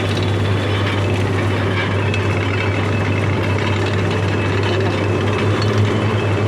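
Sugarcane juice crushing machine running steadily: a constant low hum with a dense, rough mechanical noise over it.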